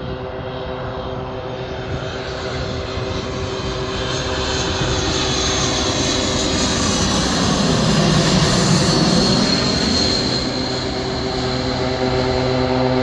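Airbus A220-300 airliner on final approach, its Pratt & Whitney PW1500G geared turbofans making a steady jet rumble with a few held hum tones. It grows louder as the aircraft passes overhead, loudest about eight seconds in with a sweeping whoosh, then eases as it descends away toward the runway.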